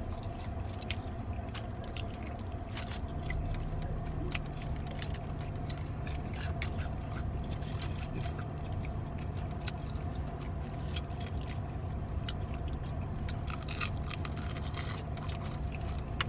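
Close-up chewing and biting into fried chicken, with irregular crunches, wet squishing and scraping of food and containers, over a steady low hum inside the car; a deeper steady tone joins in about three seconds in.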